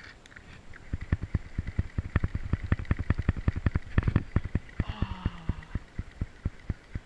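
5000-size spinning reel cranked fast, its handle and gearing giving an even, rapid clicking of about seven clicks a second as the treble-hook snagging rig is reeled in.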